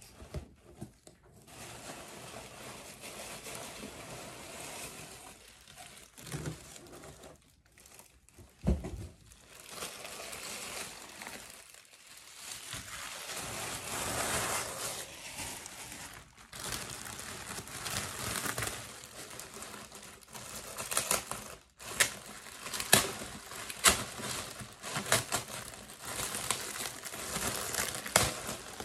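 Tissue paper and a clear plastic bag crinkling and rustling as they are handled and pulled apart, with a dull bump about nine seconds in. The plastic's crackling grows sharper and louder in the second half.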